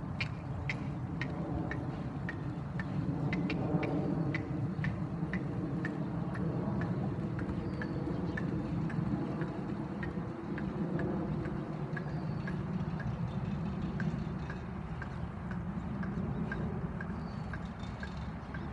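Horse trotting in a collected, passage-like trot on arena sand: light, regular clicks about twice a second in time with its steps, over a steady low background noise.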